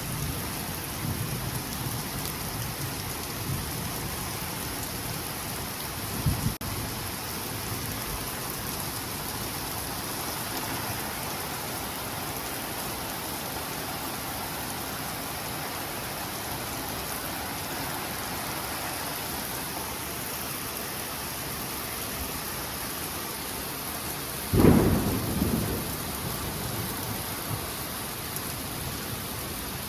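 Hard rain falling steadily, with a short thunderclap about six seconds in and a louder thunderclap late on that rumbles away over a second or two.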